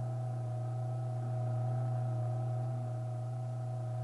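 A steady low hum, with fainter higher tones above it that waver slightly.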